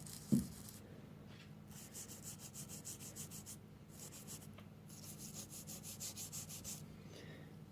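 Brisk back-and-forth scrubbing strokes, about five a second, in three short spells, as grime softened with hand cleaner is worked out of the throat-plate slide tracks on a 1914 Singer 128 sewing machine bed.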